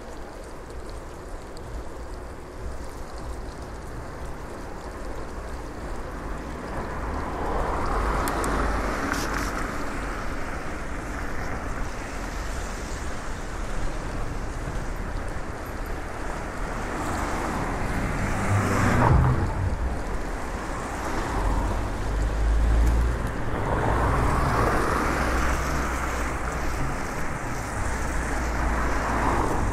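Wind rushing over the microphone and bicycle tyres rolling on a wet street, with the rising and fading swish of cars driving past on the wet road three times, the loudest about two-thirds of the way through.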